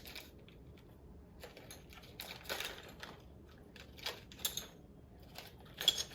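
Plastic keycaps clicking and tapping on a mechanical keyboard as they are handled and pressed into place. A brief rustle comes about two and a half seconds in, and the sharpest click is near the end.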